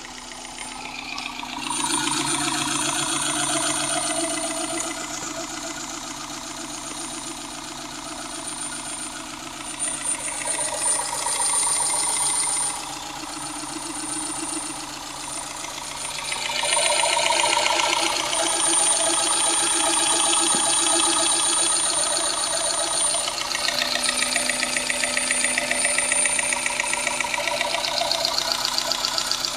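G15A four-cylinder petrol engine running while a decarbonising mixture of water, Lavr ML202 cleaner and hydroperite drips into its intake manifold. The engine gets louder about two seconds in, drops back around thirteen seconds, and is louder again from about sixteen seconds on.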